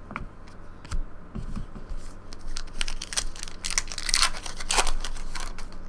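Foil wrapper of a trading card pack being torn open and crinkled. A few light clicks come first, then a run of crackling rustles from about three seconds in.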